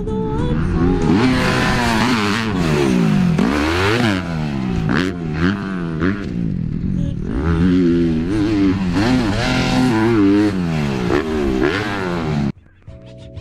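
Motocross bike's four-stroke single-cylinder engine revving up and down over and over as the rider goes on and off the throttle, the pitch climbing and dropping every second or so. It cuts off suddenly near the end.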